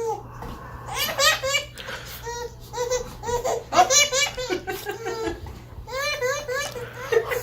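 A person laughing hard in several bouts of rapid, pulsing laughs.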